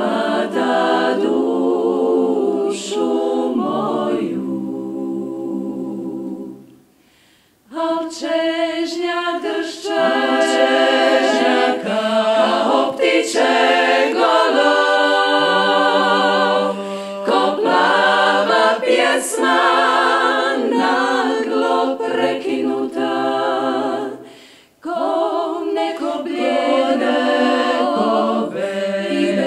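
Women's klapa ensemble singing a cappella in close, several-part harmony, Dalmatian style. The voices break off briefly between phrases about seven seconds in and again near the end.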